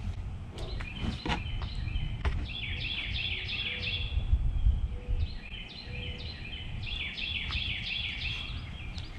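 Birds chirping: many short, falling calls that overlap and repeat from about two seconds in, over a steady low rumble. There are a few light knocks in the first couple of seconds.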